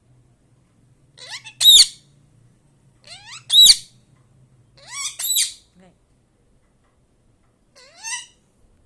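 Pet parrot calling four times, each call rising in pitch into a loud, shrill squawk.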